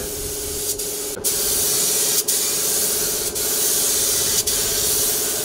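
Compressed-air paint spray gun hissing steadily as it sprays paint onto a wall, over a steady motor hum; the spray gets louder about a second in, with brief breaks roughly once a second.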